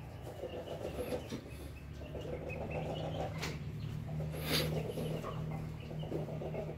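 Chickens clucking softly, over a steady low hum, with a couple of sharp clicks around the middle.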